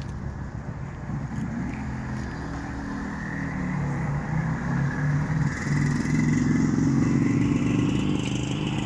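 2017 BMW R1200GS Adventure's boxer twin engine running at idle, with a steady low exhaust note that grows louder in the second half.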